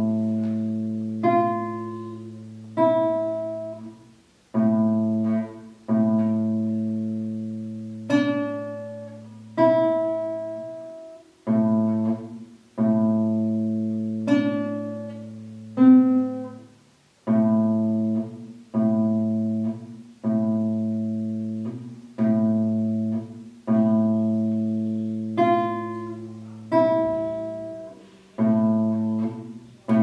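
Classical nylon-string guitar played solo: slow plucked chords about every second and a half, each left to ring and die away over a repeated low bass note.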